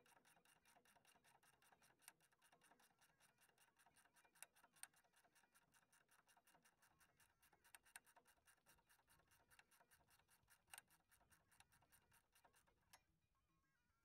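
Near silence, with a faint, fast, regular ticking that stops about thirteen seconds in.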